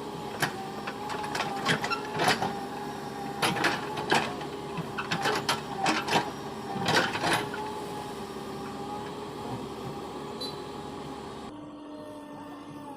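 A small motor whining steadily, with a string of sharp clicks and clatters over the first seven seconds or so. Near the end the whine changes suddenly to a lower pitch.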